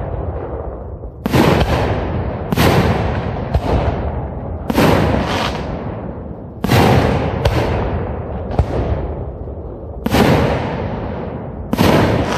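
Aerial fireworks shells bursting in a professional display: about ten sharp booms, roughly one to one and a half seconds apart, each trailing off in a long fading echo.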